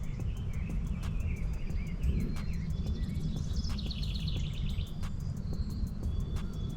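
Songbirds calling and singing, with one fast high trill near the middle, over a steady low rumble of wind and outdoor noise.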